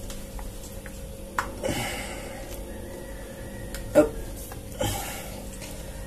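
Faint sticky, wet handling sounds of hands kneading and pulling a lump of homemade bird lime made from rat glue and liquid rubber latex over a basin of water, with a few short clicks, the sharpest about four seconds in.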